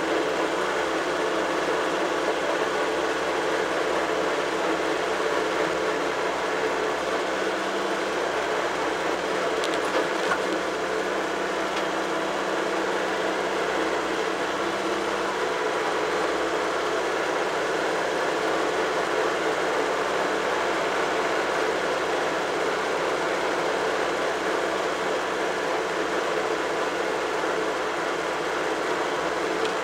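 Tractor engine running steadily at road speed, heard from the driver's seat just behind its upright exhaust stack.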